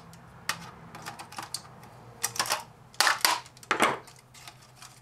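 Scattered clicks and clatter of plastic and metal parts as an electric hand mixer's plastic housing is worked apart with pliers, with a few louder sharp knocks past the middle.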